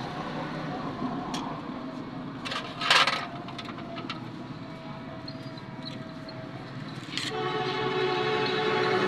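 Workshop background noise with a brief loud clatter, like metal being knocked, about three seconds in, then a steady pitched tone from about seven seconds in.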